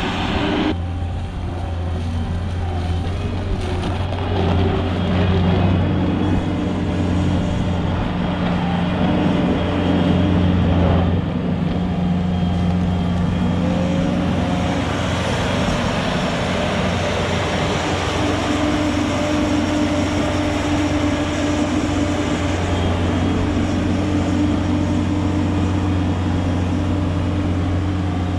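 An engine running at a steady speed, with its pitch shifting slightly a few times.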